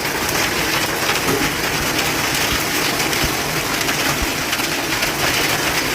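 Hail and heavy rain pelting down in a dense, steady hiss made of many small hits.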